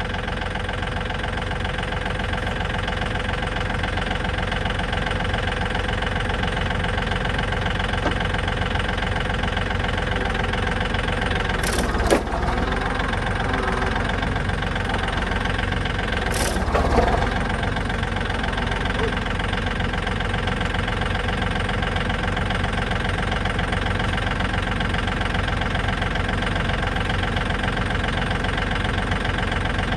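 Tractor engine running steadily throughout, with two brief sharp sounds about twelve and sixteen seconds in.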